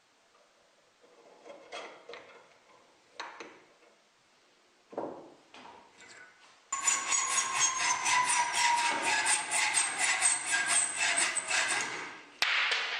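Tool work on a cross pin through a clamp handle. A few light knocks, then a loud, fast, even rattle of rapid strikes for about five seconds, with a faint tone that slowly falls. It ends with a click and a short rush of noise.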